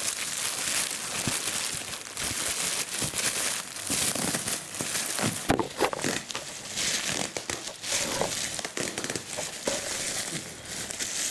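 Packaging wrap being handled and crinkled by hand, a continuous crackle with many sharp clicks as it is pulled apart.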